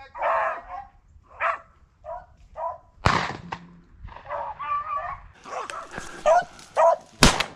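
A pack of rabbit dogs barking and baying as they run a rabbit, with two gunshots cracking out about four seconds apart, the second the sharpest.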